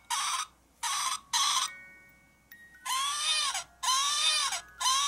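Baby doll's recorded sounds as its tummy is pressed: three short hissy bursts in the first couple of seconds, then three wailing baby cries, each rising and falling in pitch, about a second apart.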